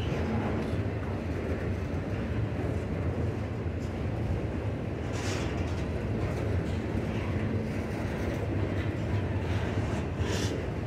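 CSX freight train of autorack cars rolling steadily past, a continuous low rumble of the wheels on the rails. Two brief high screeches cut through, about five seconds in and again near the end.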